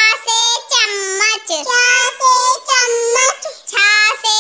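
A child singing the Hindi alphabet in a high sing-song chant, a letter and its word at a time ('cha se chammach', 'chha se chhadi'), in short phrases with brief breaks between them.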